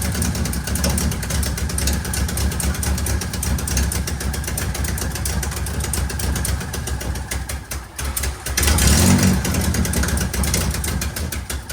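Car engine running at idle, with rapid, even firing pulses. The sound dips about eight seconds in, then runs louder for a moment.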